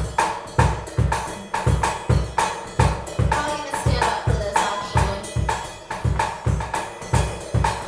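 Music intro with a steady drum beat: a kick drum about twice a second under bright cymbal or tambourine hits.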